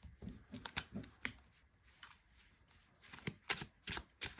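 A tarot deck being shuffled and handled: a run of light card flicks and slaps, in two bursts.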